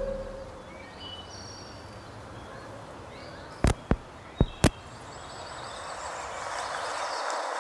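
Quiet woodland ambience with a few faint bird chirps, then four sharp clicks in two quick pairs as a cable plug is pushed into the jacks of a portable field recorder. A rushing outdoor hiss then swells up near the end.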